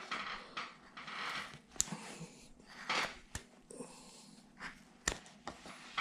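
Wood-carving shallow gouge paring wood by hand: soft scraping cuts with a few sharp clicks as the blade bites and comes free.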